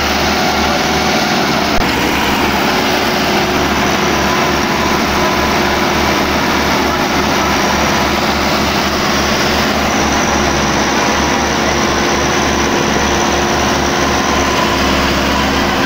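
Massey Ferguson tractors' diesel engines running hard under load while towing on a chain through loose soil, a loud, steady engine noise throughout.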